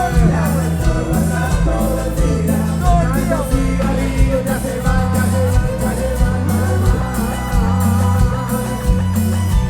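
A Chilean cumbia band playing live, with singing over a steady pulsing bass rhythm.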